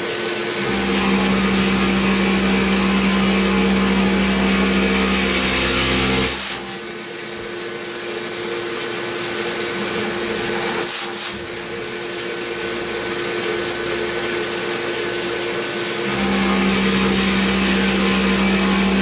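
CNC milling machine roughing a metal block with a long end mill under coolant spray: a steady spindle and cutting noise over a hiss. The strong hum drops away about six and a half seconds in, when the cut lightens, with two short hisses, and returns with full cutting load near the end.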